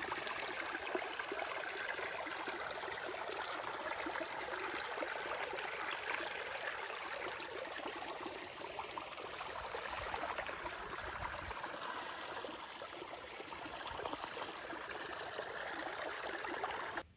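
Small mountain stream running over rocks: a steady rush and trickle of flowing water.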